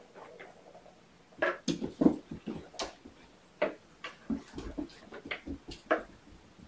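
Kittens playing with a plastic ball-track tower toy: about fifteen irregular clicks and knocks over four or five seconds, beginning about a second and a half in, as the balls rattle round the plastic track.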